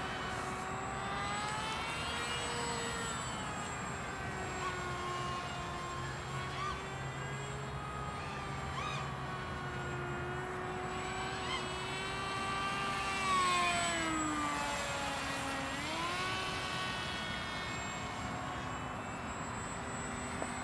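The brushless 2204 motor and 6x3 propeller of a SonicModell AR Wing flying wing, whining in flight. Its pitch wanders slowly up and down, then drops sharply and climbs back about two-thirds of the way in.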